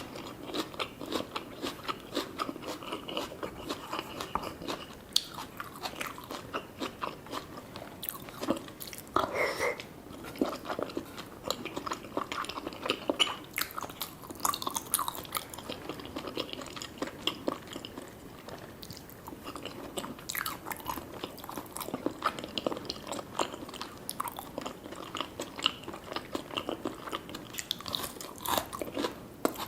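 A person eating close to the microphone: biting and chewing a sushi meal, with many short, irregular clicking mouth sounds.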